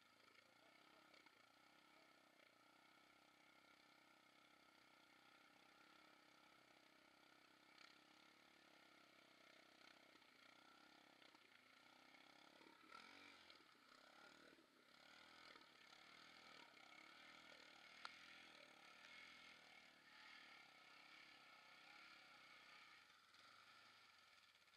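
Near silence: a faint, steady background hum.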